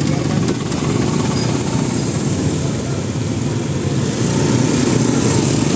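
Motorcycle engine running at low speed amid surrounding motorcycle traffic in a jam: a steady low drone with no sudden events.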